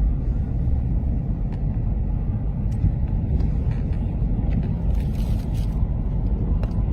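A steady low rumble with a few faint clicks scattered through it.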